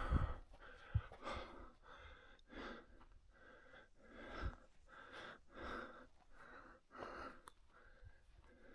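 A man breathing hard in steady, even puffs, panting from the effort of climbing a steep slope on foot.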